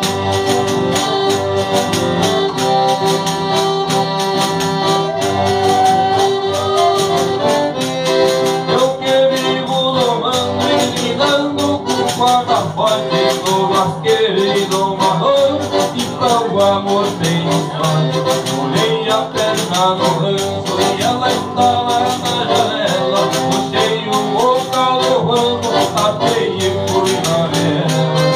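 Live folk trio of button accordion, strummed acoustic guitar and hand tambourine playing a lively tune together, the tambourine's jingles keeping a steady beat.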